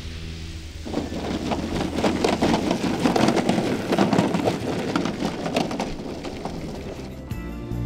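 Landing gear of a giant-scale RC Robin DR 400 touching down and rolling over bumpy grass turf, a loud crackling rattle full of small knocks, after a low steady hum in the first second. Music comes in near the end.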